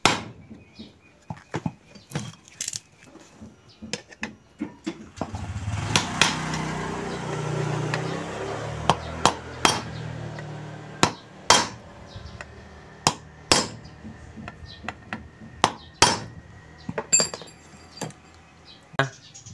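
Irregular sharp metallic taps and clinks as metal parts of a spin-dryer motor are fitted and knocked into place by hand, with a steady low rumble in the background for several seconds in the middle.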